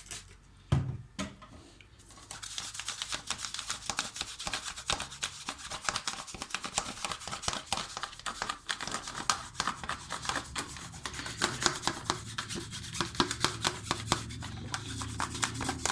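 A single knock shortly after the start, then rapid back-and-forth scrubbing of a dishwasher part with detergent, many strokes a second.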